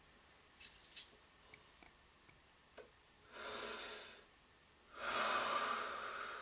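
A person takes a drag on a cigarette: a drawn-in breath lasting under a second, then a longer exhale of the smoke lasting about two seconds near the end. Two faint clicks come in the first second.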